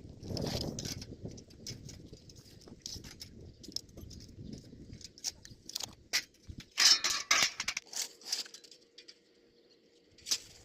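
Small iron pieces clinking and rattling as they are handled, with a louder flurry of metallic clinks about seven seconds in.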